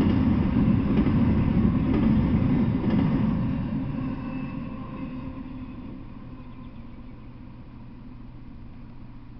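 Double-stack container freight train rolling past on the rails with a loud, dense rumble that fades away over a couple of seconds as the last car passes, about four seconds in.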